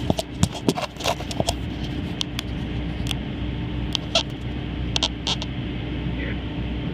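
A steady low background hum with a constant tone, overlaid by scattered sharp clicks and taps, most of them in the first second and a half and a few more in the middle.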